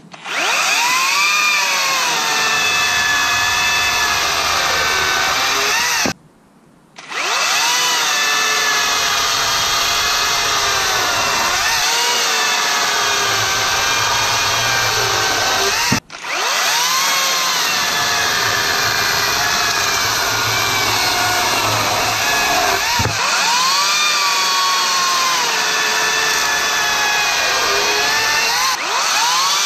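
Makita DUC254Z 18 V cordless top-handle chainsaw running and cutting wood, its motor pitch dipping and recovering as the chain bites. It stops for about a second around six seconds in and cuts out for an instant near the middle, then runs on.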